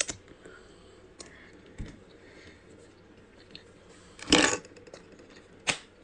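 Quiet eating sounds over a baby squid salad: a few faint clicks and taps, then two louder short noisy sounds about four seconds and just under six seconds in.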